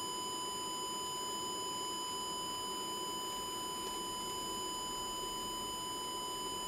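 Steady 1 kHz sine test tone, with a faint series of higher overtones above it. It is the test signal used to trace a distortion fault in a TC Electronic Fireworx effects unit.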